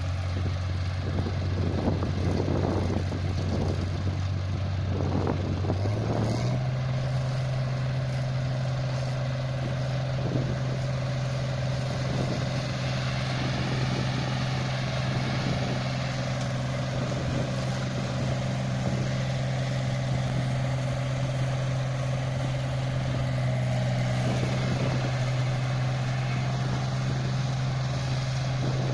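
Hino diesel engine of a John Deere paddy harvester running. The engine speed steps up about six seconds in, then holds steady.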